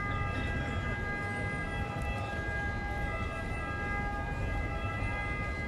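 Open-air city street ambience: a low, even traffic rumble with a steady high-pitched whine held throughout.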